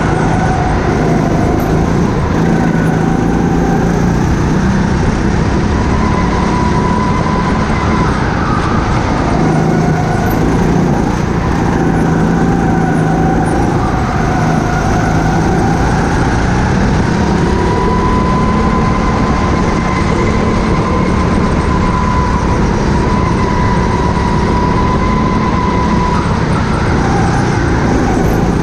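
Indoor racing go-kart's motor running hard on board, its pitch rising and falling with speed through the laps.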